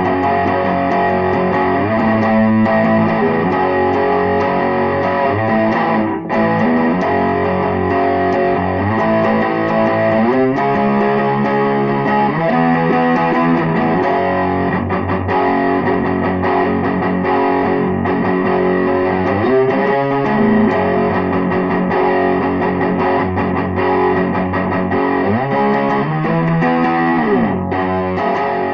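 Distorted electric guitar playing an instrumental rock melody, with notes bent up and down, most clearly near the end.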